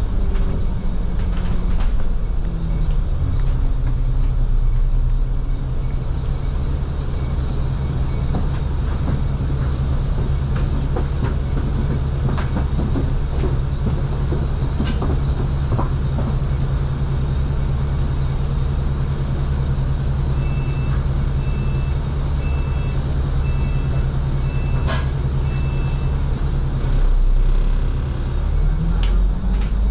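Double-decker bus heard from inside the cabin while under way: the engine drone steps down in pitch about two seconds in, then holds steady, with rattles and knocks from the body. A short high beep repeats about six times in the later part, and the engine note drops and then climbs again near the end.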